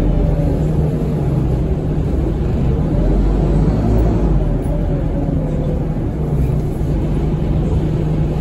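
Scania OmniCity bus's diesel engine running, a steady low drone heard from inside the passenger saloon, with a faint whine that slowly rises and falls.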